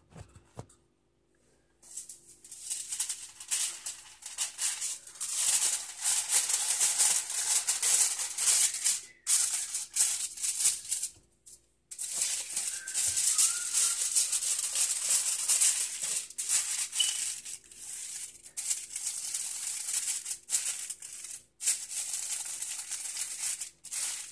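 Lemon pepper seasoning shaker being shaken over fish fillets on tin foil. It makes a dry, high rattling hiss that comes in long stretches broken by short pauses.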